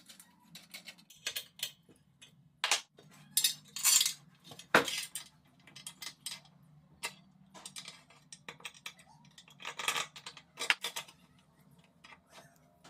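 Irregular clicks, clinks and knocks of hard objects being handled, loudest about four to five seconds in and again about ten to eleven seconds in, over a faint steady low hum.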